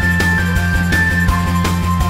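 Background music with a steady drum beat, a bass line and a held high melody note that drops lower about a second and a quarter in.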